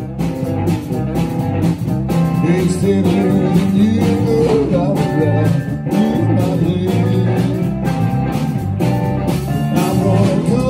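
Live blues band playing: electric guitar lines over bass with a steady beat.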